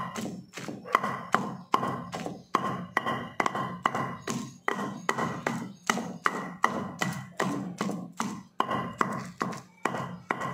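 A pestle pounding okra chutney in a heavy stone mortar, giving a steady rhythm of dull thuds at about two to three strokes a second. The pounding stops right at the end.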